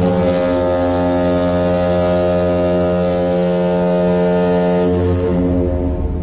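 One long, low, steady tone with many overtones, held for about six seconds and starting to fade near the end.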